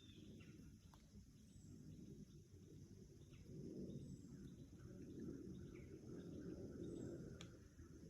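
Near silence outdoors: a faint low rumble of wind on the microphone, with a few faint, short, high bird chirps and a single light click about seven seconds in.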